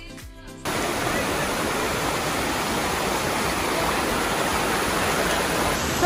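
Background music that cuts off abruptly about half a second in, giving way to the loud, steady rushing of a waterfall.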